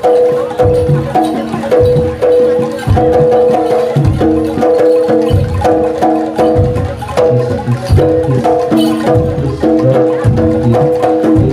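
Loud jaranan gamelan music: metal-keyed mallet instruments play a fast repeating melody over steady low drum strokes.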